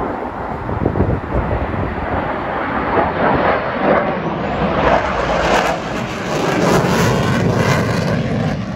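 Blue Angels F/A-18 Super Hornet jet flying past, the noise of its twin turbofan engines building over the first few seconds, staying loud, and beginning to fade near the end.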